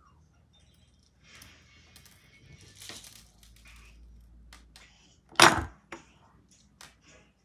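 Small clicks and rattles of clay beads in a clear plastic bead case being handled, with one loud knock about two-thirds of the way through.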